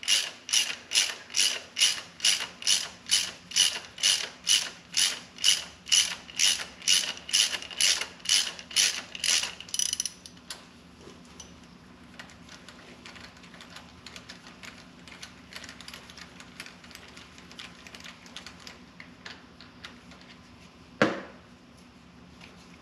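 Socket ratchet clicking steadily, about three clicks a second, as it backs a Time-Sert thread tap out of a freshly tapped head-bolt hole in a BMW M54 engine block. After about ten seconds the clicking turns faint and uneven, and a single sharp knock comes near the end.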